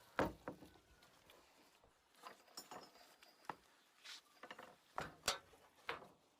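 Irregular sharp knocks and clicks, about a dozen spread over a few seconds, the loudest near the start and around five seconds in.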